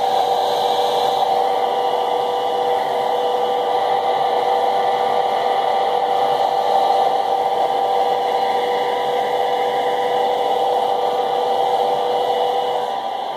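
Handheld hair dryer running steadily, blowing on wet hair: a constant rush of air with a steady motor hum.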